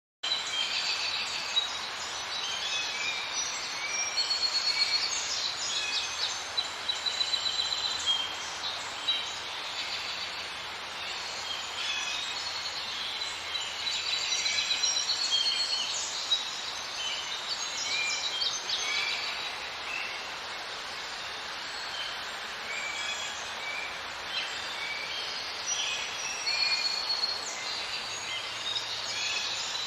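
Outdoor birdsong: many small birds chirping and trilling in overlapping short calls over a steady background hiss.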